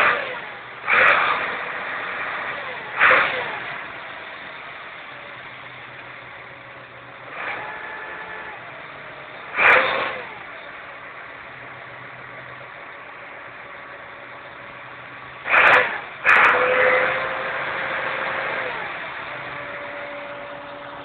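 Ford 8210 Series II tractor's six-cylinder diesel engine idling and being revved in short, sharp blips, each dying back down to idle. Near the end one rev is held for about two seconds before it drops back.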